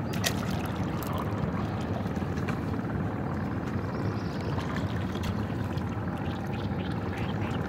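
Water splashing and trickling off a single long oar as it is worked through the lake beside a wooden rowing boat, Intha leg-rowing style, with a few sharp clicks. A steady low rumble runs underneath.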